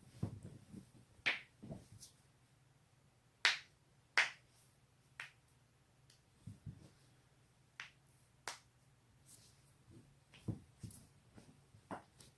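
Neck and back joints cracking: about a dozen sharp pops at irregular intervals, the loudest two around three and a half and four seconds in, with a few dull low thuds among them.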